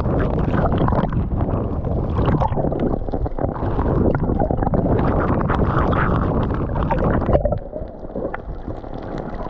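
Heavy tropical rain and wind over a choppy sea, with waves washing over a microphone at the waterline as it dips under the surface. About seven and a half seconds in the sound drops and turns muffled.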